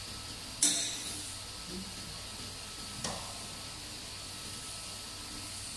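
A sharp knock about half a second in and a smaller one about three seconds in, from hand tools being handled on the steel table of a CNC vertical machining center. A steady hiss and low hum run underneath.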